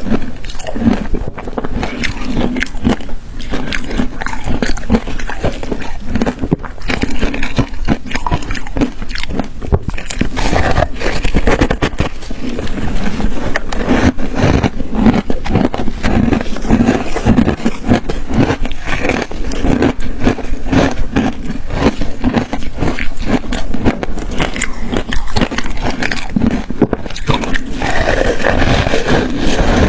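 Ice being bitten and chewed close to the microphone: dense, continuous crunching and cracking with many sharp snaps.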